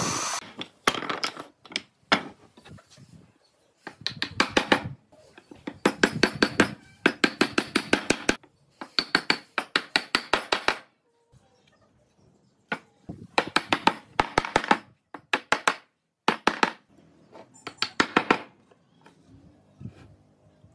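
Short runs of rapid, sharp knocks, about eight a second, each run lasting about a second, with pauses between them.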